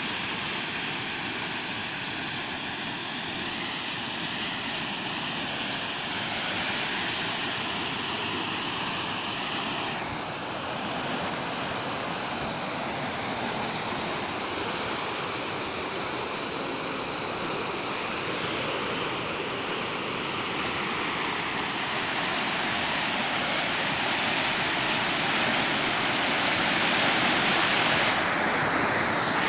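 Water pouring over a fall on an irrigation canal: a steady rushing noise that grows gradually louder toward the end.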